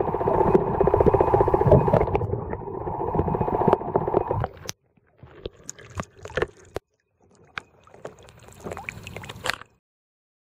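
Muffled underwater water noise picked up through a waterproof compact camera's body, dense and full of small knocks and clicks, cutting off abruptly about halfway through. Two short, sparser stretches of water noise and clicks follow.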